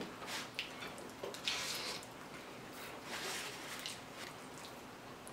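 Close-up eating sounds of spaghetti casserole: wet chewing and mouth sounds, with several short hissy slurps and a few light clicks.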